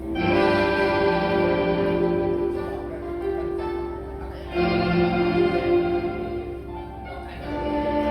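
Instrumental interlude of Cantonese opera accompaniment: sustained melodic phrases with no singing, swelling at the start and again about halfway through.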